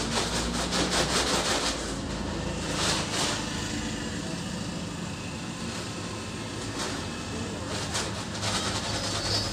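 Sand being scooped with a plastic bucket and tipped through a funnel into a woven sack: a gritty rushing pour with scraping and knocking. The strokes come in dense runs at the start, again about three seconds in, and near the end.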